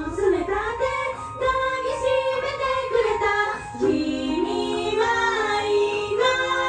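A young woman singing a J-pop idol song into a handheld microphone over held keyboard-like chords, with the drums and heavy bass dropped out for a quieter passage.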